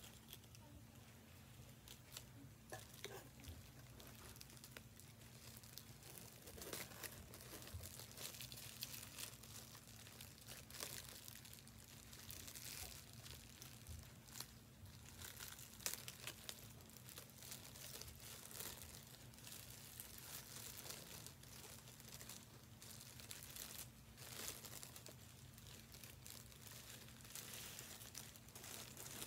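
Thin clear plastic bag handled and opened by hand: faint, irregular crinkling and rustling of the plastic, with scattered sharper crackles. A steady low hum sits underneath.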